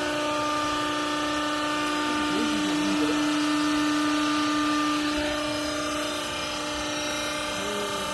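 Hydraulic clothes baler running: a steady mechanical hum with several held tones over a noisy haze, the strongest low tone dropping out about five seconds in.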